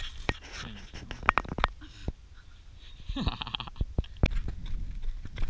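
Irregular close knocks and clicks of movement on a loose-stone riverbank, with a short grunt that falls in pitch about three seconds in.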